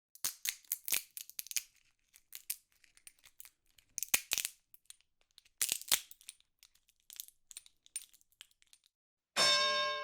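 A string of irregular sharp clicks and crinkles, then a bright ringing chime with a decaying tail about nine seconds in.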